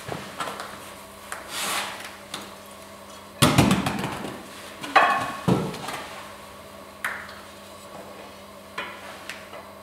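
Handling noise as a heavy metal weight disc on a thin wire is lifted and hung from a wooden stand: a run of irregular knocks, clunks and scrapes, loudest in a cluster about three and a half to five seconds in.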